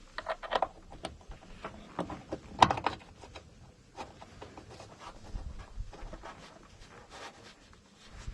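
Scattered knocks, clunks and rubbing of an air intake shield being handled and set into a truck's engine bay, the loudest knock about two and a half seconds in.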